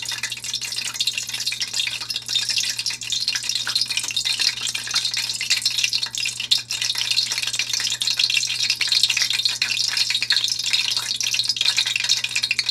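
Hot peanut oil in a wok sizzling with a steady, dense crackle as it heats for frying onions.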